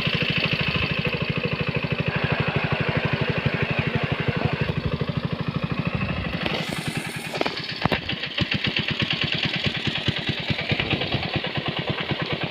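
An engine running steadily with a fast, even beat, broken by a short hiss a little past halfway.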